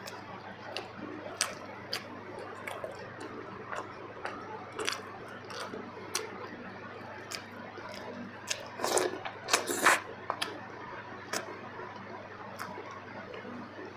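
Close-miked eating sounds of a person eating kuzhi paniyaram with gravy: irregular wet chewing and mouth smacks, with a louder cluster of smacks about nine to ten seconds in.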